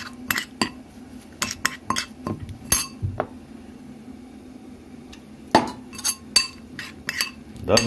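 Metal spoon clinking and scraping against a bowl while stirring semolina and flour with water into a stiff dough. The clicks come irregularly, with a quieter pause between about three and five seconds in.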